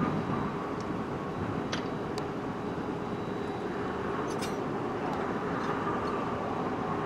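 Steady vehicle engine and road-traffic noise with a faint hum, and a few light clicks about two and four seconds in.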